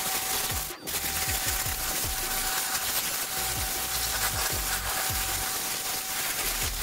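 Dedra 1900 W electric pressure washer running, its jet hissing steadily against the underside of a lawn mower deck to blast off caked dirt, with a steady whine from the pump. The spray and whine stop briefly about a second in, then resume.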